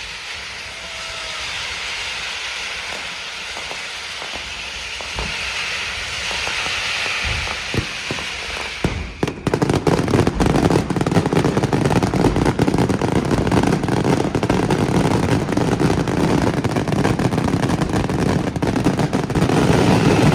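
Fireworks display: a steady hiss with a few scattered pops, then about nine seconds in a dense, continuous barrage of rapid bangs breaks out, much louder.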